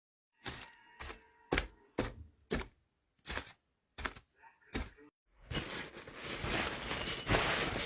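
Footsteps, about two a second, on a forest floor. About five and a half seconds in they give way to a louder, continuous rustling and crackling of brush.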